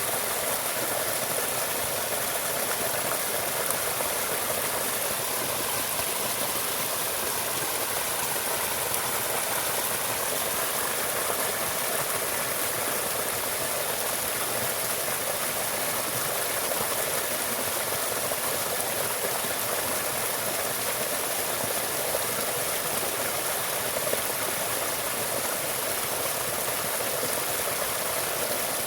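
Steady rushing of flowing stream water, an even hiss without breaks or distinct splashes.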